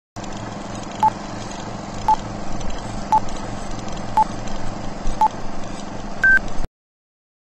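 Film-leader countdown sound effect: a short beep once a second, five times, then a higher, longer final beep, over a steady whirring hum with a fast low flutter. It cuts off suddenly.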